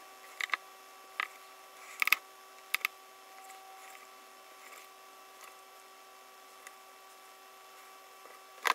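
Makeup brush setting powder on the face: a few short, soft taps and brushing sounds in the first three seconds, then only a faint steady electrical hum.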